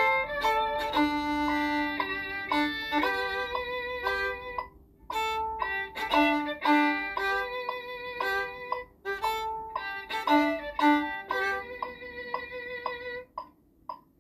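Violin playing a melody in separate bowed notes, with a brief pause about five seconds in.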